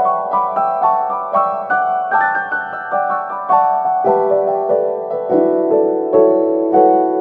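Background piano music: a steady run of single notes, several a second, in a gentle melody.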